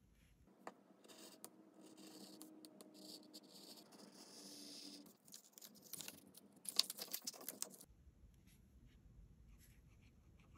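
Paper and craft supplies handled on a desk: scratching and rustling of paper starting about half a second in, then a quick run of sharp taps and clicks that stops about three-quarters of the way through.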